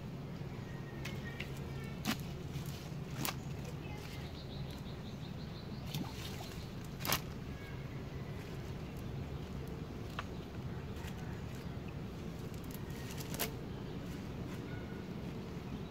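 Cast net and dry leaves rustling as fish are picked out of the net by hand, with a few sharp clicks, the loudest about seven seconds in. A steady low hum runs underneath.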